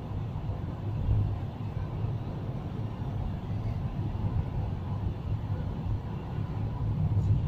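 Steady low rumble of a car driving at speed through a road tunnel, heard from inside the cabin: engine and tyre noise.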